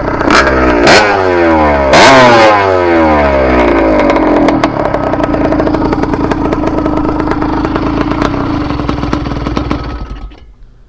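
Small two-stroke engine of a motorized bike (Minarelli-type with an Athena cylinder kit) blipped three times, revs falling away, then idling steadily before it is switched off about ten seconds in. The engine is still in break-in and jetted rich.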